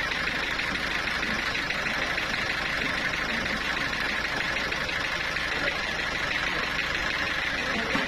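Sawmill machinery running steadily: a continuous mechanical drone with a strong hissing band high up that does not change.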